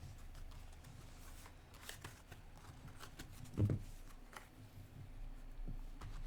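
Tarot cards being shuffled and handled: a run of soft, irregular papery rustles and clicks. A brief low vocal sound comes a little past the middle.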